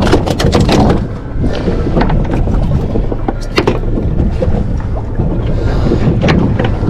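Wind rumbling on the microphone aboard a small fishing boat. A rapid clatter of knocks comes in the first second, and a few single knocks follow later.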